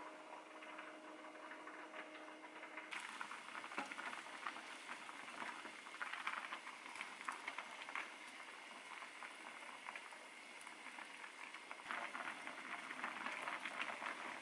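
A pot of thick, spicy broth with dough pieces at a rolling boil: dense bubbling and popping that starts about three seconds in. Before it there is only a faint steady hum.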